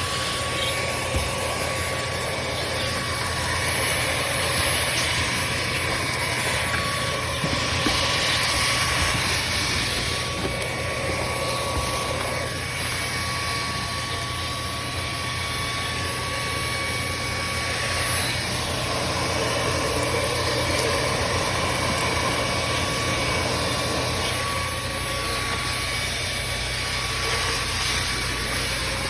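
Proscenic P11 Lite cordless stick vacuum running steadily: a high motor whine over a rush of air, swelling and easing a little as it is worked.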